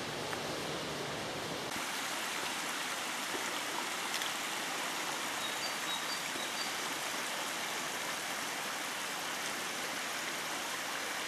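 Small forest stream running over stones: a steady rush of water.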